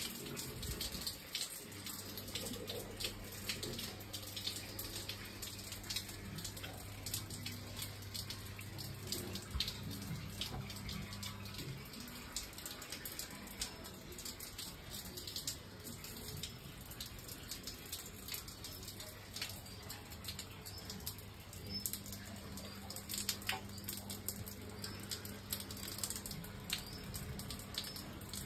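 Water running and dripping, a steady splashing hiss with many small ticks. A faint low hum sits under it during the first third and comes back near the end.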